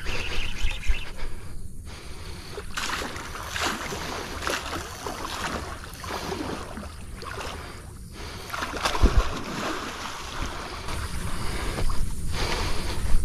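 Water splashing and swirling as a hooked wels catfish fights at the surface of a fast, flooded river, over a steady rush of water. The splashes come irregularly, the heaviest one about nine seconds in.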